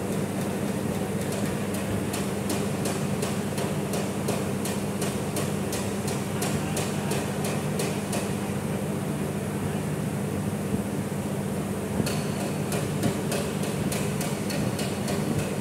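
Ratchet wrench clicking in quick regular strokes, about three or four a second, as the throttle body's mounting bolts are tightened. It comes in two runs with a pause between, over a steady low workshop hum.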